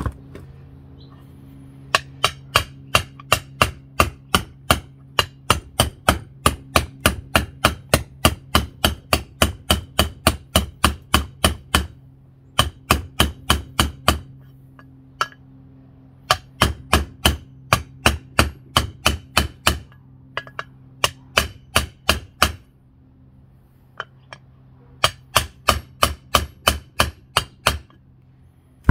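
A hammer tapping a bearing into a scooter transmission side case, about three sharp blows a second in runs with short pauses between, over a steady low hum. The frozen bearing has not slid into the heated case by itself, so it is being driven into its bore.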